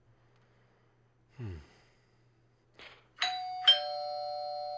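Two-tone doorbell chime: a ding-dong about three seconds in, the second note half a second after the first, both ringing on. It signals a visitor at the door.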